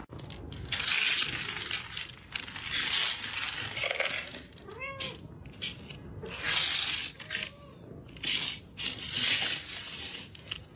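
A cat meowing a few short times, with four loud, breathy, noisy bursts of about a second each in between.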